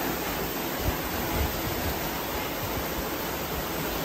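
Steady rain falling outside: an even, unbroken hiss.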